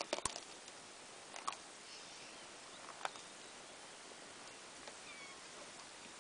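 Spotted hyenas and vultures at a carcass: three sharp cracks in the first three seconds, and a faint, short, high squeaky call about five seconds in, over a steady hiss.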